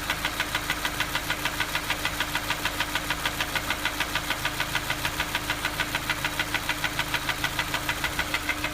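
Honda S2000 four-cylinder engine running steadily with a rapid, even tapping, about five or six taps a second. The tapping is an unexplained fault that a new cam chain tensioner, set valve clearances and many other checks have not cured.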